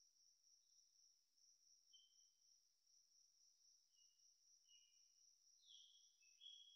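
Near silence with a faint steady high drone of crickets, and a few short high chirps near the end.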